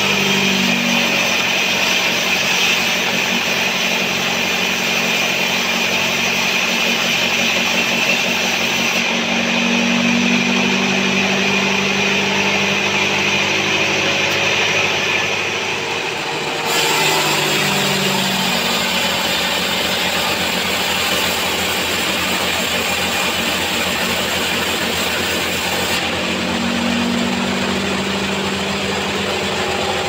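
Homemade band sawmill running, its blade ripping lengthwise through a sengon (albasia) log: a steady mechanical drone with a hiss of cutting over it, dipping briefly about halfway through.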